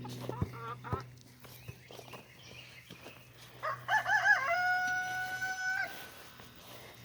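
A rooster crowing once about four seconds in: a few short wavering notes, then a long held final note of about a second and a half.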